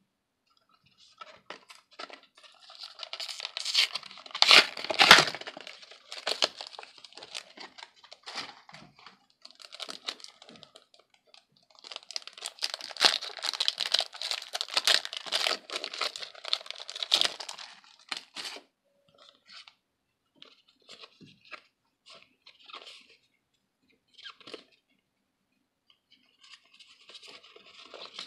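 A Yu-Gi-Oh trading card booster pack's wrapper being torn open and crinkled, loudest about four to five seconds in and again from about twelve to eighteen seconds. After that come faint, scattered rustles of the cards being handled.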